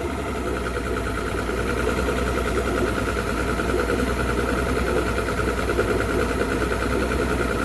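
2009 Mercury Optimax 250 Pro XS direct-injection two-stroke V6 outboard idling steadily, with a low hum and a fast, even pulse. It runs without the clunking that torn fuel and air regulators had caused.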